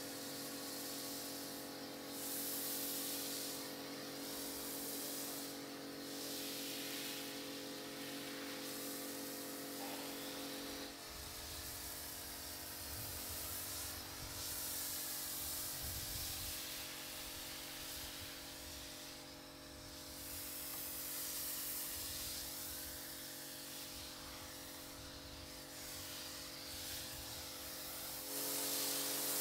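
Pressure washer foam lance spraying thick snow foam onto a car with a steady hiss, over the steady whine of the electric pressure washer's motor and pump. The whine changes tone about a third of the way through.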